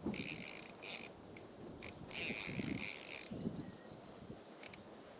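Spinning fishing reel being cranked in several short spurts of high-pitched whirring, the longest about a second, as line is wound in.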